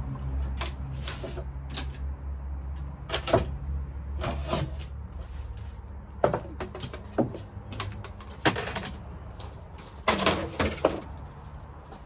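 Irregular knocks, clunks and short scrapes of hard objects being handled and moved about, over a low steady hum that fades about halfway through.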